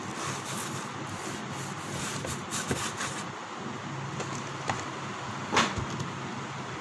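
Cardboard pizza box and plate being handled: rubbing and scraping as the pizza is lifted out of the box onto the plate, with small clicks and one sharp knock about five and a half seconds in, over a steady low hum.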